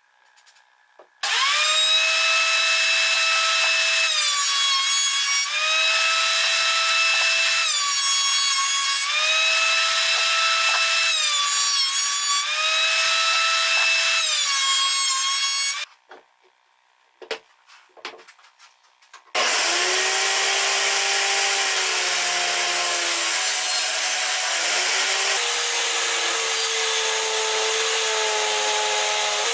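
Benchtop thickness planer running, its motor note sagging briefly about every two seconds as fir boards feed through. After a short pause with a few clicks, a table saw starts up and rips a fir board, its pitch dropping under the load of the cut.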